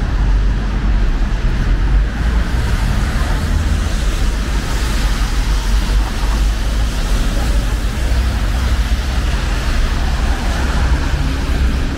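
Steady city street traffic noise: cars passing on the road with a continuous hiss and a heavy, constant low rumble.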